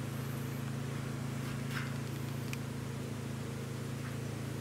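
A steady low engine hum, unchanging in pitch, with a few faint clicks over it.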